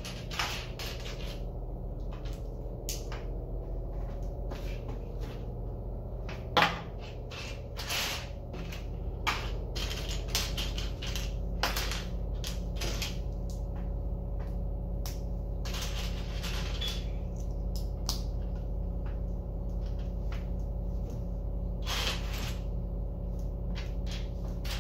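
Plastic Lego pieces clicking and rattling as they are picked out and handled, in irregular short clicks over a steady low hum.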